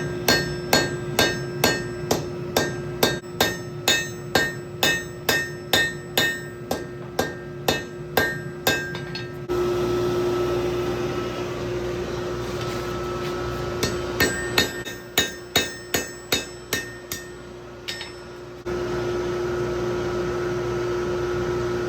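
Hammer blows ringing on hot steel over an anvil as a hammerhead blank is forged, a rapid run of strikes at about two to three a second, then a pause with a steady hum and rush, then a shorter second run of strikes.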